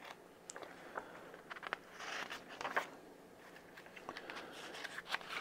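Comic book pages being turned and handled: faint paper rustles and soft clicks, loudest about two to three seconds in.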